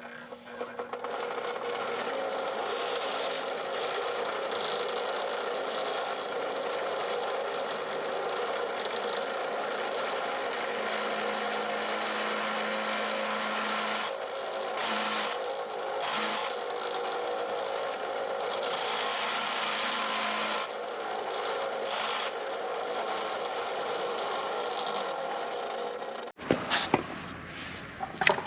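A power tool grinding or sanding metal, running steadily without a stroke rhythm and cutting off suddenly about 26 seconds in, followed by a few sharp clicks.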